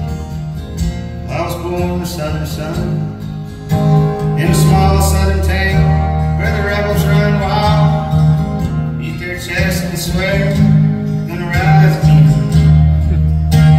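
Two acoustic guitars strummed and picked in a folk song, with a voice singing over them from about a second and a half in.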